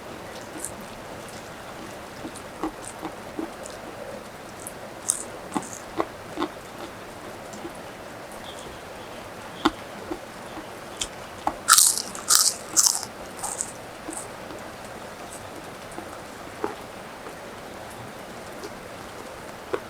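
Close-up eating sounds: scattered crisp bites and chewing of crunchy food, with a run of loud crunches about twelve seconds in.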